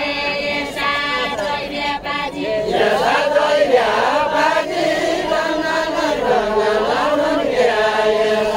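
Group of voices singing a Deuda song without instruments: a slow, chanted melody of long held notes that slide up and down between phrases.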